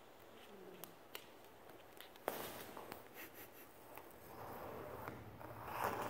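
Harlequin macaw's feet clicking and scraping on a hardwood floor as it walks, with a few sharp ticks. Near the end there is a louder, short scraping rustle as its beak comes up against the phone.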